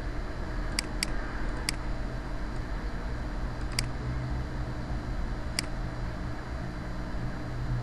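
Computer mouse button clicked five times, short sharp clicks, three close together near the start, then two more spaced out, over a steady low hum and hiss.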